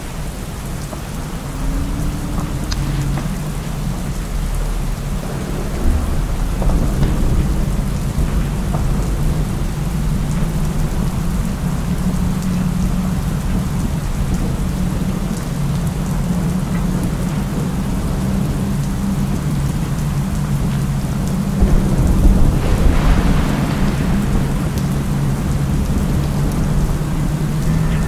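Heavy rain falling while riding, a steady hiss over a continuous low rumble from wind buffeting the moving microphone. The hiss swells louder for a couple of seconds about 22 seconds in.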